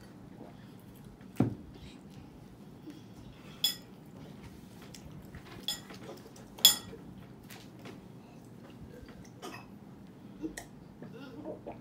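Forks clinking against ceramic noodle bowls and drinking glasses knocking on the table: about half a dozen separate sharp clinks, the loudest a little past halfway.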